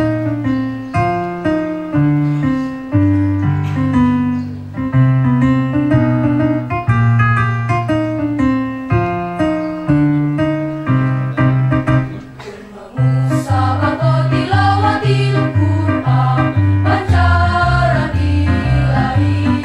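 An instrumental introduction plays a march-like pattern of chords over a bass line. About thirteen seconds in, after a brief drop in level, a girls' choir comes in singing over the accompaniment.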